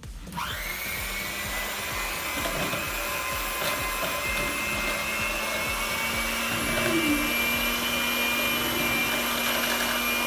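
Electric hand mixer switching on and running steadily with a constant whine, beating peanut butter, egg and baking powder into a batter in a mixing bowl.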